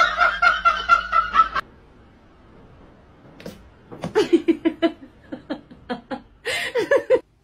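People laughing in short bursts: a high-pitched, pulsing giggle at first, then quick runs of lower laughter from about four seconds in, with a last burst near the end.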